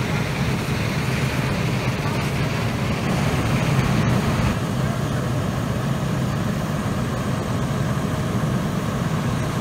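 Fire engine's engine running steadily at the pump, feeding the hose lines, under the hiss of hose spray. The hiss thins out about four and a half seconds in.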